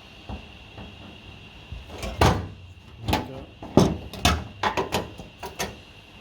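A run of sharp clicks and knocks from sheet-metal patch pieces being handled and pinned in place with clecos, starting about two seconds in, the loudest two early on the run.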